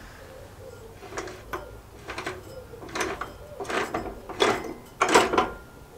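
Rusty drive pulley and shaft of an old Suffolk cylinder lawnmower turned by hand in short strokes. It gives about seven brief scrapes of rusty metal that grow louder toward the end.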